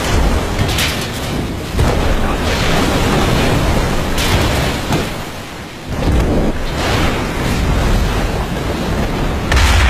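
A loud rushing, rumbling noise that swells and falls in surges, dipping briefly a little past halfway through.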